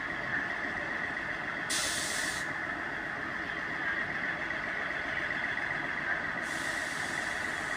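Class 158 diesel multiple unit standing at the platform with its engines idling, a steady drone, with a short burst of air hiss about two seconds in and a softer hiss starting near the end.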